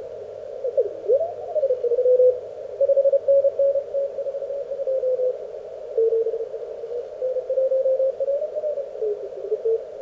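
Elecraft K1 CW transceiver receiving on 20 metres through its narrow filter: a band of receiver hiss with Morse code signals as keyed tones. About a second in, a tone glides in pitch as the tuning knob sweeps across a station. Dots and dashes follow, their pitch shifting slightly as tuning continues.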